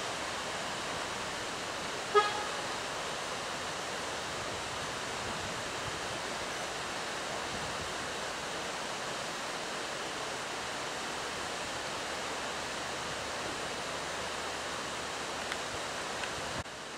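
A steady rushing hiss, with one short horn toot about two seconds in. The hiss drops away abruptly near the end.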